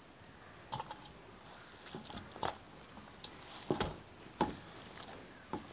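Hands kneading a moist rice-flour, jaggery and banana dough in a wide steel plate: a few scattered short squishes and pats, the loudest near the middle.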